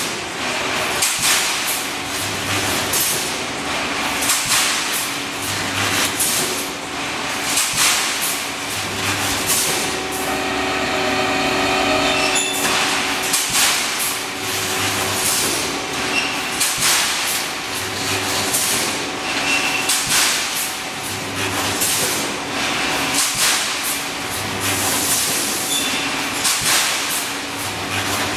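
Pneumatic wire mesh welding machine working through its cycle: a short low hum about every three seconds as a row of welds is made, over continual clattering knocks of the machine. A brief steady whine comes in near the middle.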